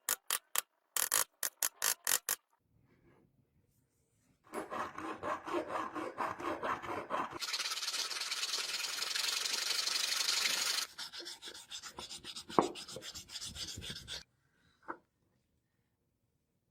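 A hand file rasping on metal in runs of quick back-and-forth strokes, broken by short pauses, with one stretch of fast continuous rasping in the middle and a single sharp click shortly after.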